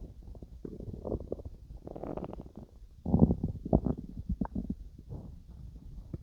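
Human stomach growling and gurgling as it digests food: an irregular run of bubbly gurgles, the loudest a little after three seconds in.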